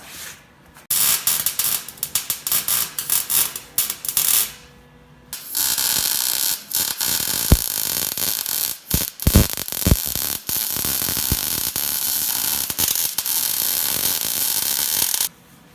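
Electric arc welder laying a bead on a steel bumper, a harsh crackling hiss full of sharp pops. A short burst of about four seconds, a brief pause, then a longer steady run of about ten seconds that stops suddenly near the end.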